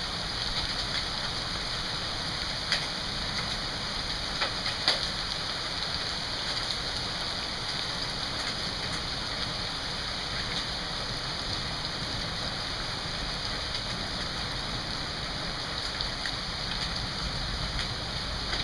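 Steady downpour of rain falling on pavement and lawn in a hail storm, with a few sharp ticks about three to five seconds in.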